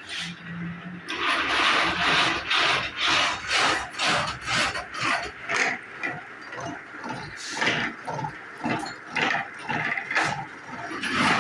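Milling machine's gear cutter cutting rack teeth: a rhythmic scraping and chattering, about two cuts a second, that starts about a second in.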